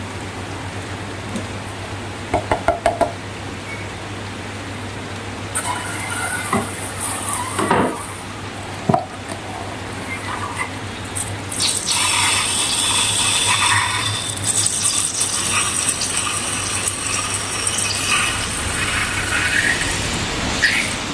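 Wet slime-making sounds: liquid being poured and slime stirred and squished in a container, busiest in the second half. A few quick taps come about two seconds in, over a steady low hum.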